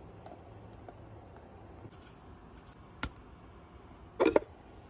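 Food handling at a small slow-cooker crock as vegetables go in and seasoning is shaken over them: a soft hiss of sprinkling, a sharp click about three seconds in, and a short, loud rattle of shakes near the end.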